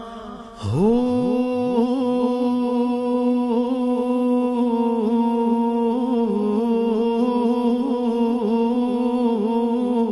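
Sustained hummed vocal drone in a Sufi devotional song: the voices slide up in pitch under a second in, then hold one note steadily with a slight waver.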